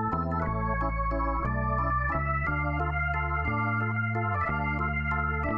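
Background music with an organ-like keyboard sound: sustained chords over a bass line that moves to a new note every half second or so.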